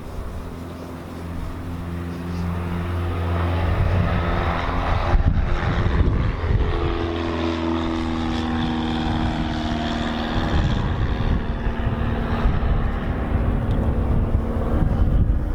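Electric rotary polisher running steadily, its motor pitch changing a couple of times.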